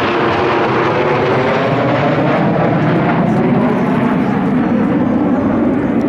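Kawasaki T-4 jets of the Blue Impulse team passing low, a loud, steady jet roar whose pitch slowly falls as they go by.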